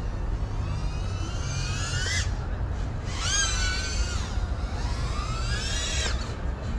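FPV quadcopter's motors whining, the pitch rising and falling with the throttle: a rising whine that cuts off about two seconds in, a rise and fall a second later, and a long climb near the end, over a steady low rumble.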